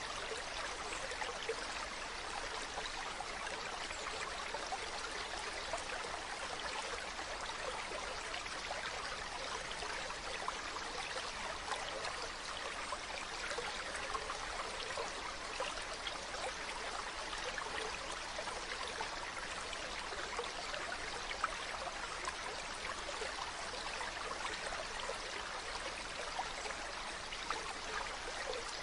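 Mountain river or stream running over rocks: a steady rush of water with small splashes and gurgles, even throughout.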